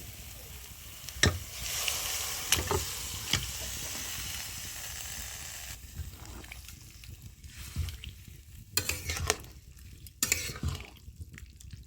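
Boiled bottle-gourd stems and aubergine going into spice paste frying in oil in a kadai. Sizzling swells about two seconds in and dies down after a few seconds, with the clinks and scrapes of a spatula stirring.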